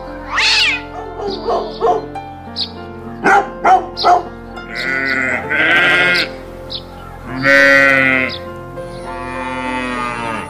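A kitten mews a few short times, then sheep bleat in several long calls, all over steady background music.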